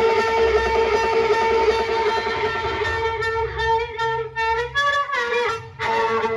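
Loud music played through a sound system during a sound check: a held, bowed-sounding melody note over steady low bass, moving into a line of changing notes about halfway through, with a brief break shortly before the end.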